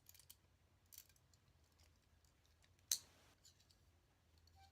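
Faint, sparse metallic clicks of steel handcuffs being handled and worked into place, with one sharper click about three seconds in.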